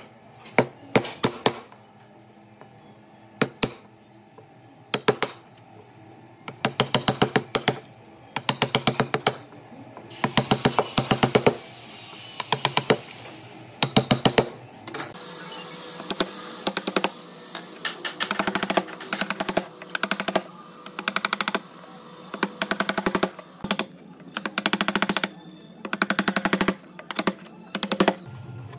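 Hand tool working wood: repeated bursts of rapid clicking, each lasting under a second, coming more regularly, about once a second, in the second half.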